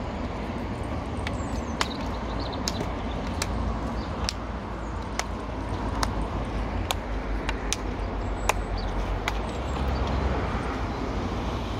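Outdoor ambience of road traffic on a bridge: a steady low rumble, with scattered sharp clicks and a few faint chirps.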